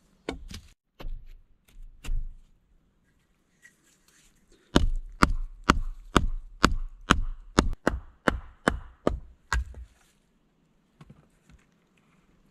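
Hatchet chopping at a wooden stake: a few separate knocks, then a quick run of about a dozen sharp strikes, roughly two a second, that stops about two and a half seconds before the end.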